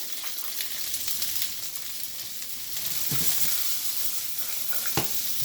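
Chinese broccoli stems stir-frying in hot oil in a wok with garlic and ginger, a steady sizzle. A single sharp knock about five seconds in.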